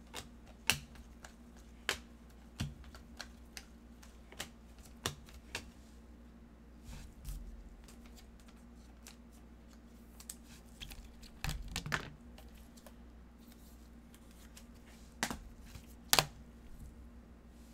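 Irregular sharp clicks and snaps of glossy Prizm basketball cards being flipped through one by one in gloved hands, with the handling of a card in a plastic sleeve. The loudest clicks come just after the start and near the end, where the stack is set down.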